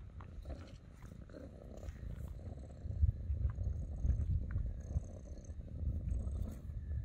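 Domestic cat purring as it is stroked and scratched: a low, fluttering rumble that grows louder about three seconds in.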